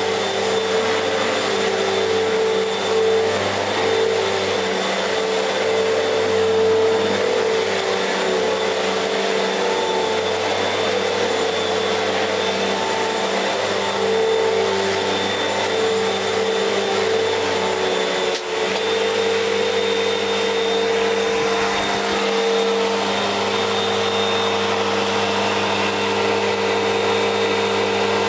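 Fantom Fury vacuum cleaner running steadily: a motor hum with a faint high whine over the rush of air, briefly dipping about two-thirds of the way through. Its suction is weak, which the owner puts down to aged seals leaking.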